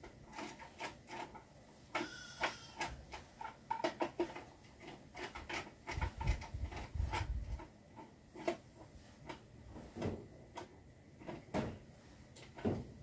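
Irregular light clicks and knocks of a solar charge controller being handled and fitted against its wall mounting, with a low rumble about six to seven and a half seconds in.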